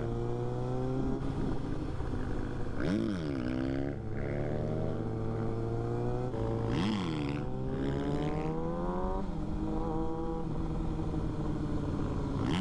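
Motorcycle engine pulling hard, its pitch climbing steadily. Twice, about three and seven seconds in, the revs drop sharply and climb again, then they level off near the end.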